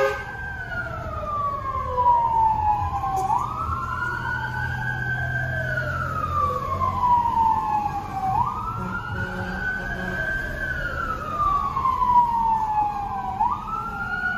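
Fire truck siren on a slow wail: the pitch rises, then slides down, about every five seconds, with a fainter second wail overlapping out of step. A low engine rumble runs underneath.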